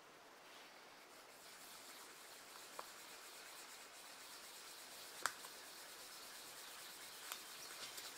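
Faint steady scraping hiss of wet sandpaper on a sanding block rubbed back and forth along a steel billhook blade, working up through fine grits toward 2000. A few light, sharp clicks stand out, the loudest about five seconds in.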